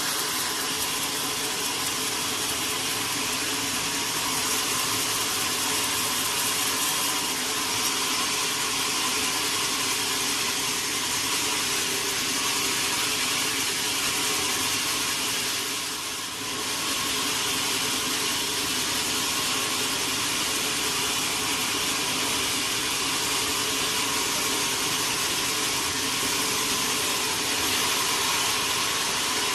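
Sawmill machinery running steadily: a constant motor hum under a loud, even hiss, dipping briefly about halfway through.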